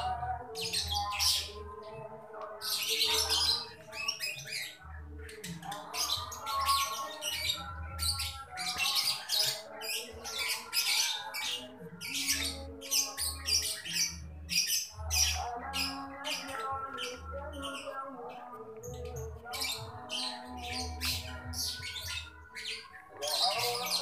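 Birds chirping and squawking over soft background music of held, slowly changing notes, with low thumps recurring through it.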